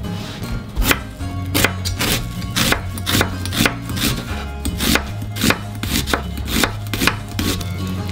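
Kitchen knife slicing through a raw onion and knocking on a wooden cutting board: a steady run of crisp cuts, about two to three a second.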